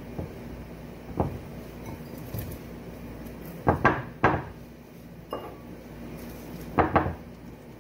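Hands tucking cut vegetable pieces into a ceramic baking dish: sharp knocks and clinks against the dish, one about a second in, a quick cluster of three around four seconds and two more near the end, over a steady low hum.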